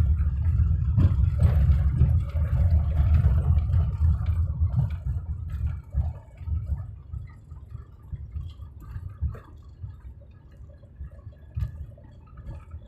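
Car driving on a rough off-road track: a low, uneven rumble that drops off after about six seconds, leaving scattered knocks and clatter.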